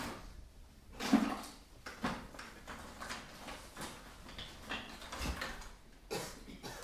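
Hands rummaging in a plastic bucket: irregular scrapes and knocks, with the loudest knock about a second in.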